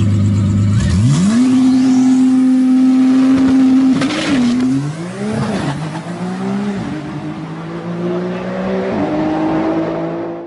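Nissan GT-R R35's twin-turbo V6 launching down a drag strip. It holds a steady low rev, climbs sharply about a second in and holds high, then rises and drops through several upshifts from about four seconds on, fading as the car pulls away.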